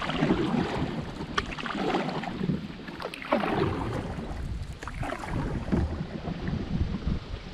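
Paddle strokes through river water, each one a swishing splash, with a few small knocks and drips in between, and wind rumbling on the microphone.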